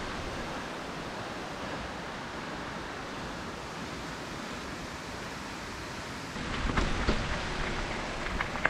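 Steady rushing noise of wind on the helmet-camera microphone and knobby tyres rolling over the trail as a mountain e-bike rides downhill. From about six seconds in it gets louder, with several knocks over rougher ground.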